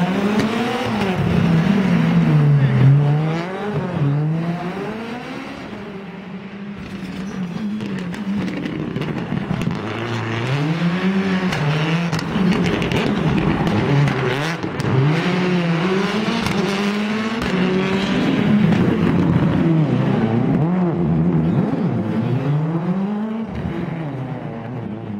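Rally car engine at racing pace, revving up and dropping back again and again as the driver shifts gears and lifts off for corners. It is loudest about three seconds in, fades for a few seconds and then comes up strongly again.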